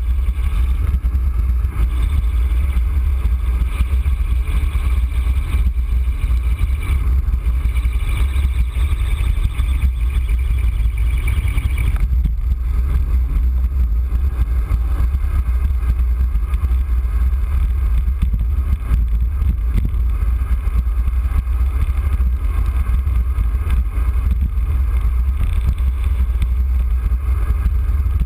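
Steady low rumble of wind buffeting a bike-mounted camera's microphone as a road bike descends at speed, with tyre and road noise from the wet pavement.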